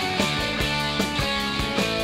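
Rock music led by guitar, with a steady beat.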